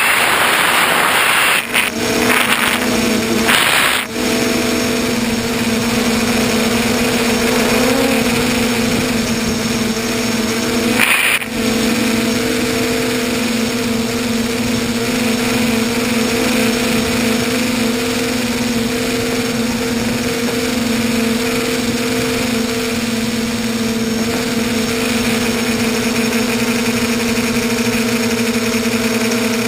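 Tricopter's electric motors and propellers droning steadily with a constant hum, heard from the craft's onboard camera along with rushing air noise. The sound dips briefly three times in the first dozen seconds.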